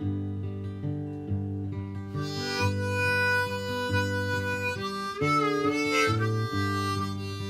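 Acoustic guitar playing a blues intro, joined about two seconds in by a harmonica melody. The harmonica bends a note in pitch near the middle, then drops out shortly before the end, leaving the guitar.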